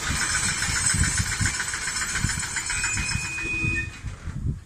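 Freight train of open gondola wagons rolling slowly under braking, with wheels knocking, a steady hiss and a brief high squeal. The noise dies away sharply near the end as the train comes to a stop.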